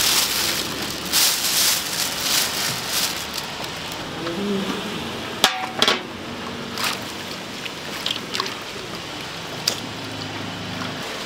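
Metal spatula clinking and scraping on a hot griddle, over a steady frying sizzle. A sharp clack about five and a half seconds in is the loudest sound.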